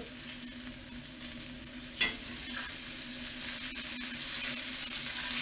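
Venison steaks sizzling in hot canola oil in a cast-iron skillet on high heat. There is a sharp metal clink about two seconds in as a fork turns the steaks, and the sizzle grows louder in the second half as the seared sides come up.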